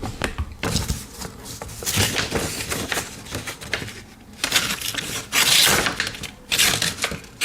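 Pocket knife blade drawn through a knife sharpener in several gritty scraping strokes, the longest and loudest about five to six and a half seconds in.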